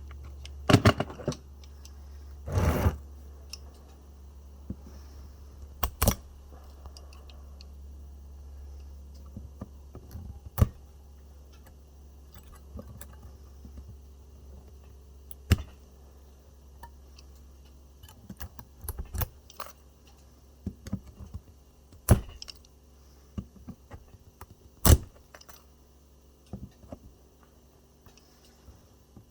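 Pliers working the metal connector strips off the cells of an e-bike battery pack: irregular sharp metallic clicks, snaps and clinks at scattered moments, over a steady low hum.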